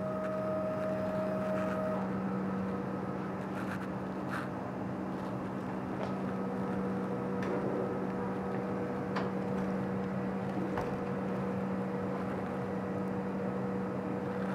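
DTF printer running as it prints a nozzle check pattern on film: a steady machine hum, with faint whines from its motors that come and go and a few light clicks.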